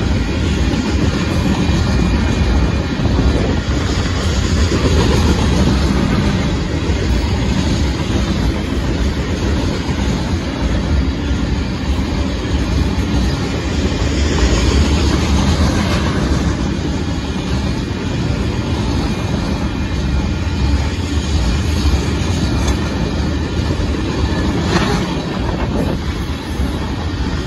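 Union Pacific freight train of hopper cars rolling past, its wheels on the rails making a steady, deep rumble.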